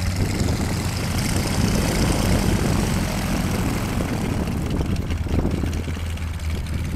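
Strong wind buffeting the microphone: a loud, steady low rumble with a constant drone underneath, the same wind that is filling the landed parachute canopy.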